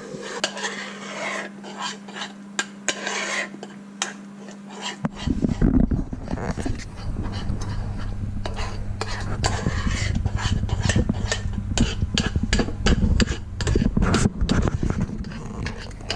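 Metal spoon scraping and clinking against a small saucepan as a thick egg-yolk custard filling is stirred over a gas flame, in many quick irregular strokes. A low rumble joins about five seconds in.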